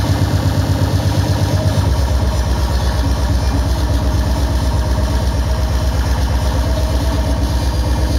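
Hardcore techno over a club sound system: a fast, heavy kick drum beating in a steady rhythm under a dense wash of sound. About two seconds in, the kick pattern changes, coming quicker and fuller in the bass.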